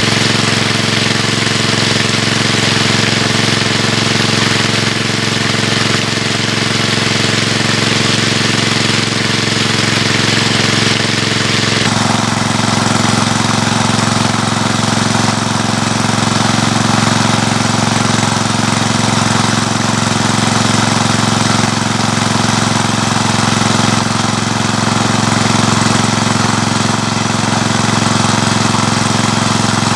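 A small engine running steadily, with a change in its note about twelve seconds in.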